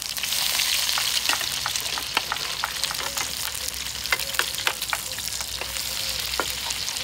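Eggs frying in onion rings in hot oil in a skillet: a steady sizzle with frequent crackling pops.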